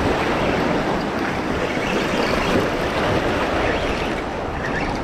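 Steady strong wind buffeting the microphone, with waves breaking on the beach.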